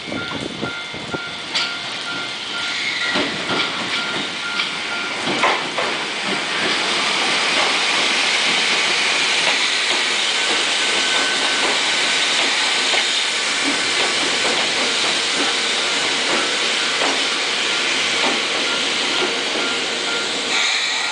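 Level crossing bell ringing at first and fading, as an electric commuter train comes in with wheels clicking over the rail joints. It then runs past as a steady hiss of wheels on rail.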